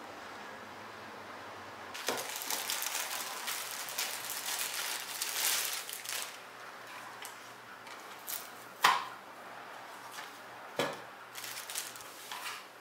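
Clear plastic bag crinkling for a few seconds as a plastic trackball mouse is pulled out of it. Then come several sharp clicks and knocks as the trackball is handled and set down, the loudest about nine seconds in.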